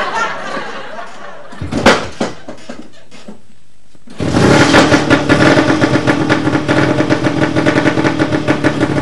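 A two-stroke bajaj auto-rickshaw engine starts running about four seconds in, a fast, steady putter of even pulses. A single sharp knock comes about two seconds in.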